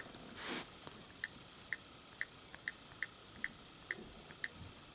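Faint short clicks, each with a small bright ring, coming about twice a second, with a soft rustle just after the start.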